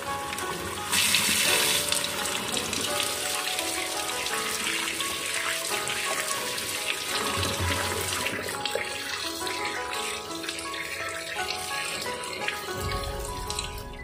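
Kitchen tap running into a stainless steel bowl in a sink, splashing over sweet potatoes being washed by hand. The water is loudest for the first several seconds, then eases.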